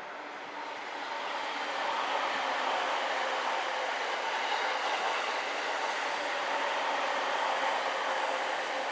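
Electric train passing on the rails: a steady rushing of wheels and running gear that swells about a second in and then holds, with a faint high whine in the latter part.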